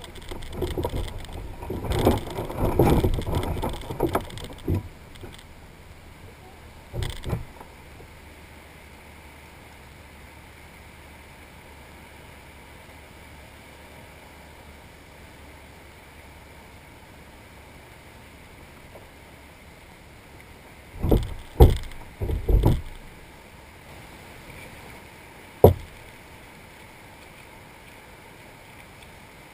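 Bumps, knocks and rattles of gear being handled on a plastic fishing kayak, loud because the camera is mounted on the hull: a busy cluster in the first few seconds, one around seven seconds, three quick knocks around twenty-one seconds and a single sharp knock a few seconds later. Between them, a steady low background of wind and water.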